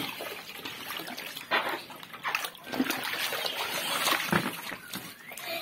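Water splashing and sloshing in a shallow inflatable paddling pool as children thrash and play, with several sharp splashes and a few short vocal noises.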